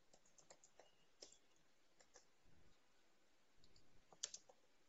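Faint, scattered clicks of a computer keyboard and mouse, with a slightly louder cluster about four seconds in.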